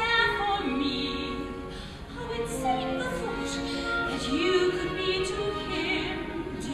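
Stage-musical music: a pit orchestra playing a slow passage of held notes with vibrato and gentle slides between pitches.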